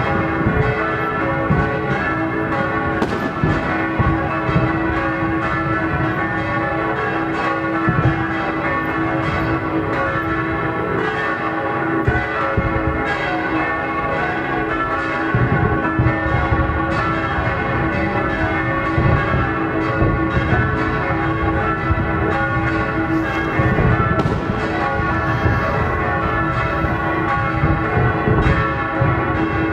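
Several church bells pealing together, with scattered dull bangs from fireworks underneath.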